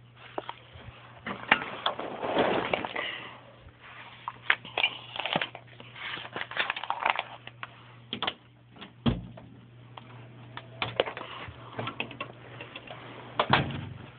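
Small plastic toys and miniature play-kitchen pieces being handled and set down on a hard surface: irregular clicks, taps and scuffles, with a louder knock about nine seconds in and another near the end.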